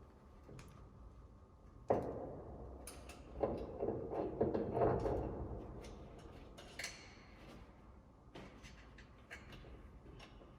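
Metal car suspension parts being handled and fitted: a sharp knock, then a run of clanks and rattles, a short scrape and a few light clicks.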